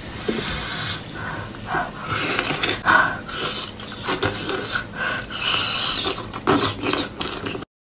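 Close-up wet eating sounds of a person biting, chewing and slurping a whole octopus: many short wet smacks and clicks with breathing between them. The sound cuts off suddenly near the end.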